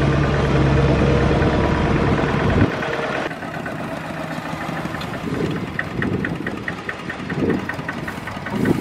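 Single-cylinder diesel engine of a two-wheel walking tractor idling steadily. About two and a half seconds in its sound drops away sharply, leaving a much quieter background with a faint regular ticking.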